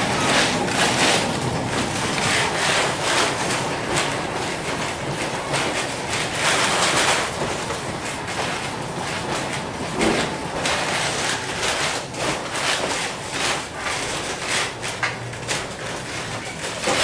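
Heard from inside a 1906 John Stephenson-built wooden streetcar as it runs along the track: a steady running noise of the wheels on the rails, with many small knocks and rattles from the car throughout.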